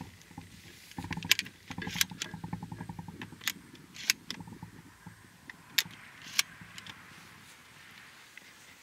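Sharp metallic clicks and clinks of brass-based shotgun shells and a Hatfield SAS semi-automatic 12-gauge shotgun being handled, about six separate clicks a second or so apart.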